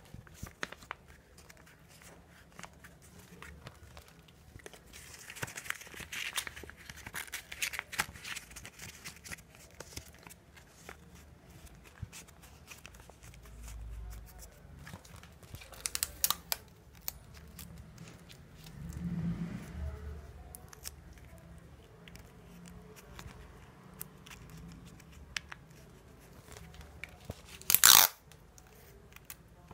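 Paper being rolled and handled, with soft rustling and scattered small clicks. Near the end a short, loud rip as a strip of sticky tape is pulled off a tape dispenser.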